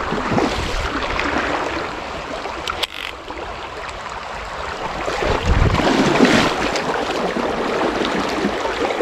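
Steady rush of flowing river water, with a low bump about five and a half seconds in.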